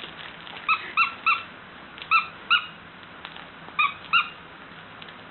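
A noise-making toy squeaking seven times in three quick groups: three, then two, then two short rising squeaks.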